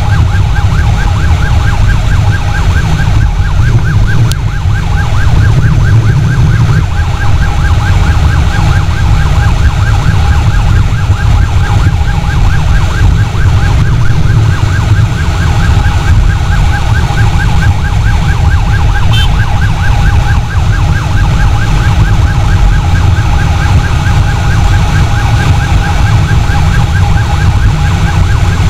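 A siren warbling fast and steadily without a break, over heavy wind rumble and a motorcycle engine riding at speed.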